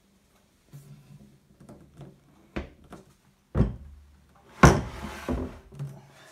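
A hand tapping, patting and brushing over the black anodised aluminium and plastic panels of a motorcycle top box. It makes a string of dull knocks, with the loudest thud a little past the middle, followed by a short rubbing swish.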